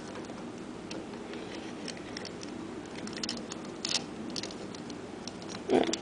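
Faint, irregular small clicks of plastic 4x4 Rubik's Cube pieces being handled and fitted together, over a low steady hum.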